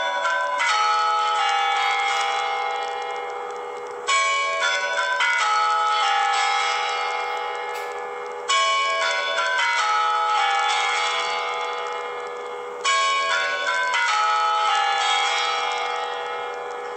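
The Kremlin's Spasskaya Tower chimes ring their melody before the midnight strikes that see in the New Year. A new bell phrase starts sharply about every four seconds and rings on as it fades, with a lasting hum from the bells near the end.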